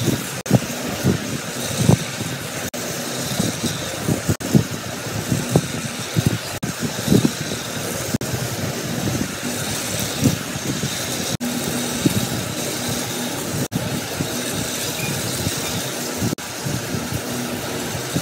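Toy electric trains running on plastic track: a steady motor whir with irregular clicking and knocking from the wheels and track, several times a second.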